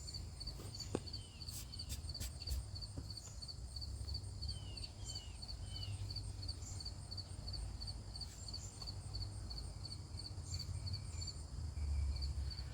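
Insects chirping outdoors in a steady high pulse, about two pulses a second, with a few short falling bird calls in the first half, over a low steady rumble of background noise.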